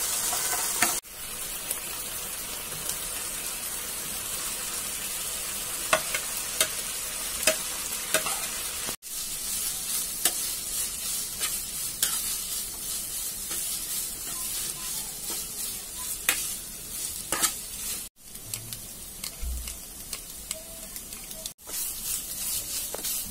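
Onions, then shredded chicken, sizzling in a non-stick frying pan while a plastic spatula stirs and scrapes through them, with frequent sharp taps of the spatula on the pan. The sizzle breaks off abruptly a few times and picks up again.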